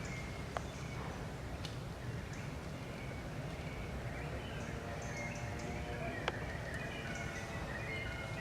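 Outdoor forest ambience: small birds chirping and twittering over a steady low rumble, with a few sharp clicks.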